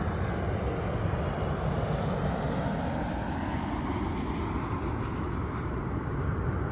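Boeing 787 Dreamliner's jet engines, a loud steady rush as the airliner passes low on its landing.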